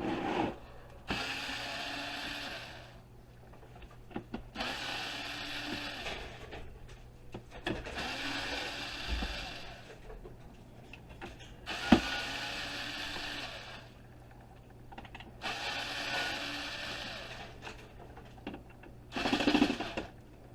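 A power driver running in about six short bursts, backing screws out of an electric heater's plastic back panel, with a sharp click about midway.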